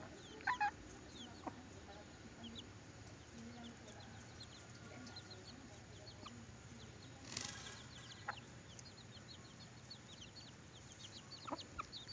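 Faint bird calls: many short, high chirps scattered throughout, with a few brief louder squawks, the loudest about seven seconds in.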